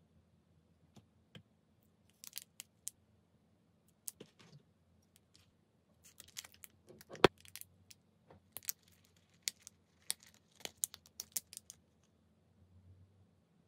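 Light clicks, taps and crinkling of tiny plastic toy pieces being handled, as a miniature noodle packet is crinkled and snipped open with small scissors, with one sharp snip a little past halfway.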